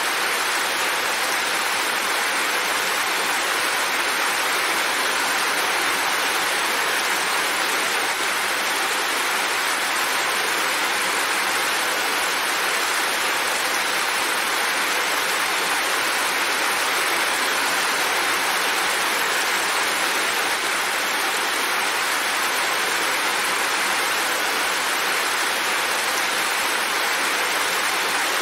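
Steady, heavy rainfall: an even hiss with no single drops or other events standing out.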